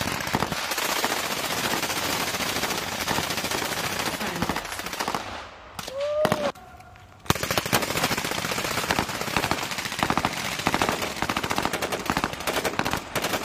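Rapid gunfire from several military rifles firing together on a range, shots tightly overlapping. The firing breaks off for about a second and a half a little before halfway, then resumes just as dense.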